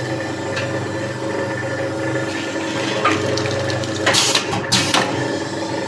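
Automatic pouch packing machine running with a steady motor hum, its pneumatic horizontal sealer giving two short hisses of air about four seconds in as it seals a masala pouch.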